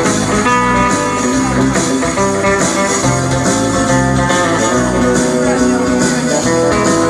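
Band music led by guitar, with a bass line and a steady beat.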